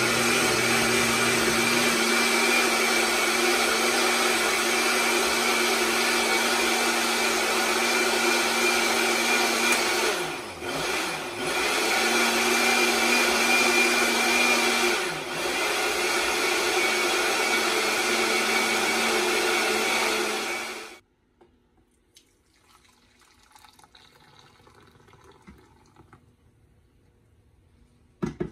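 Countertop electric blender running at full speed, blending bánh xèo batter. The motor dips briefly around 10 to 11 seconds in and again around 15 seconds, then stops about 21 seconds in. A few knocks follow near the end.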